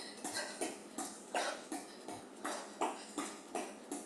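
Quick rhythmic huffs and light taps from a person doing hopping low kicks on an exercise mat, about three a second: sharp exhales with each kick and sneakers landing.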